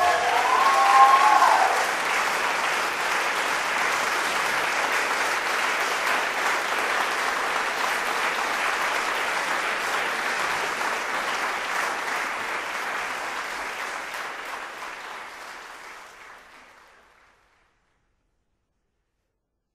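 Audience applause closing a live orchestral recording: a steady patter of many hands clapping that fades out near the end. There is a brief pitched cry about a second in.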